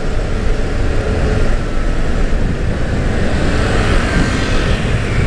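A Vespa Primavera scooter's single-cylinder engine running at cruising speed, under heavy wind rumble on an open clip-on microphone, with road traffic noise.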